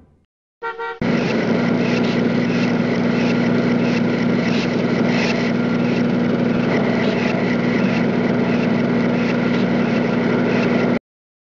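A steady mechanical hum: a constant low drone with a higher whine over it. It starts about a second in and cuts off suddenly near the end.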